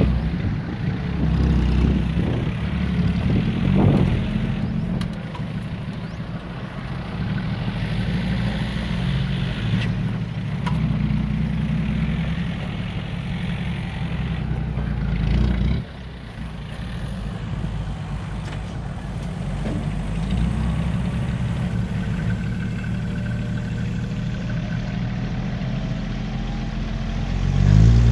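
Diesel engine of a six-wheel dump truck running as it backs up with a load of soil, easing off sharply about halfway through. Near the end the engine revs up as the hydraulic tipper raises the loaded bed.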